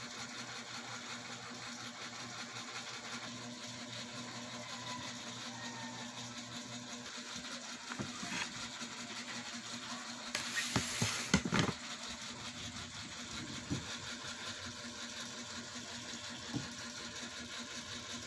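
Steady low hum of a small motor over a background hiss, with a cluster of knocks and handling noises about ten to twelve seconds in.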